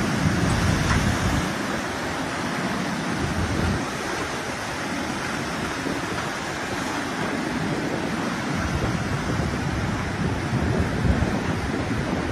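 Tsunami surge water rushing and churning across flooded land, a steady, full wash of turbulent water. Wind buffets the microphone in low gusts, strongest at the start and again near the end.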